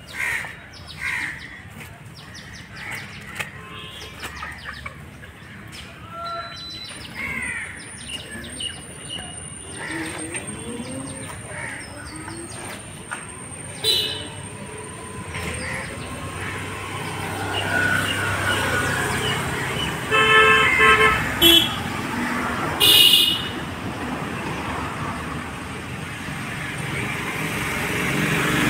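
Roadside street ambience with birds chirping, then vehicle horns honking several short times about two-thirds of the way through, and traffic noise building toward the end.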